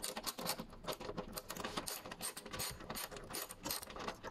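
Ratchet wrench with a 12 mm socket clicking as it is swung back and forth to tighten a nut on a bolt. The clicks come in quick runs, sparse at first and closer together later on.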